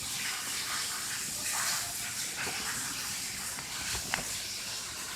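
Steady hiss of background noise with no speech, and a brief faint click about four seconds in.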